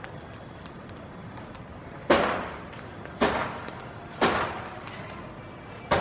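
Wood fire crackling with faint scattered ticks, with four sharp knocks about a second apart starting about two seconds in.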